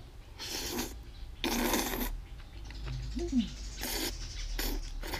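A person slurping saucy noodles off chopsticks: about five short, sharp slurps, the longest lasting under a second.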